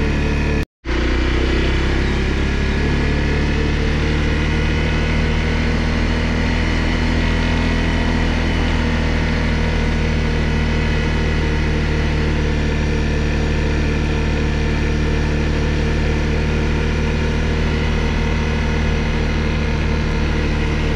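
Honda CRF250L's single-cylinder engine running steadily at an even pitch. The sound cuts out completely for a moment just under a second in.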